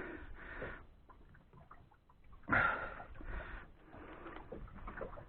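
A man sniffing and breathing through his nose. There is a short breath near the start and a stronger one about two and a half seconds in, with faint small rustles between.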